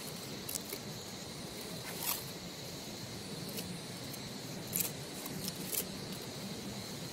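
Steady high-pitched insect drone, with a handful of short, sharp crackles and rustles scattered through; the loudest come about two seconds in and near five seconds in.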